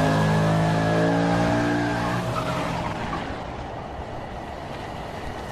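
A car running, its pitch sinking slightly as it fades away over the first two or three seconds, leaving a steady hiss.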